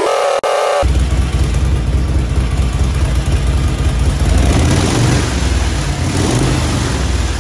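1965 Harley-Davidson Panhead's 74 cubic inch V-twin engine running, starting abruptly about a second in, its level swelling a little as the throttle is worked.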